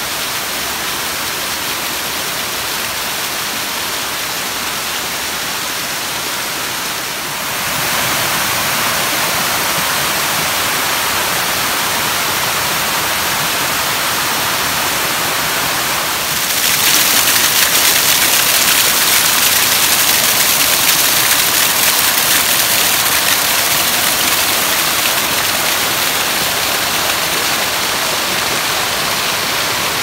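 Waterfall water rushing and splashing down a sloping rock slab: a loud, steady hiss that steps up in loudness about seven seconds in and again about sixteen seconds in.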